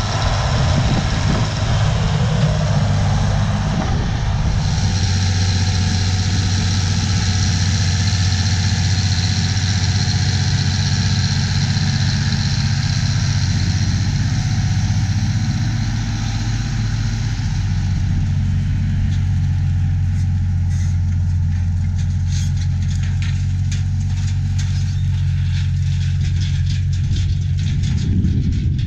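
Allis Chalmers 4W-305 tractor's turbocharged six-cylinder diesel running steadily under load while pulling a disk ripper.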